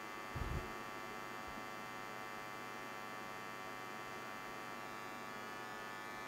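Steady electrical mains hum with a buzzy edge, with one soft low thump about half a second in.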